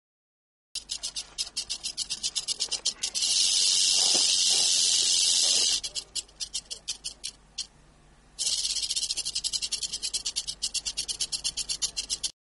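Rattlesnake shaking its tail rattle in warning: quick separate rattling pulses that speed up into a continuous buzz about 3 s in, break back into pulses, stop briefly, then buzz again and trail off into pulses before cutting off suddenly.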